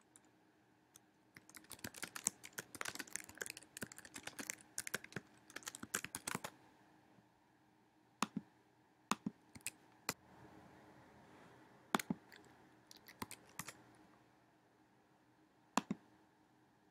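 Computer keyboard typing: a quick run of keystrokes lasting about five seconds, followed by a scattering of single separate clicks.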